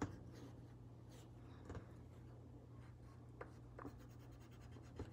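Faint scratching of a colored pencil on paper as it colours in an area, with a few light ticks, over a low steady hum.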